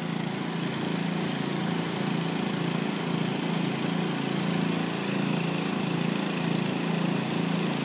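Small gasoline engine of a pressure washer driving a sewer jetter, running steadily under load.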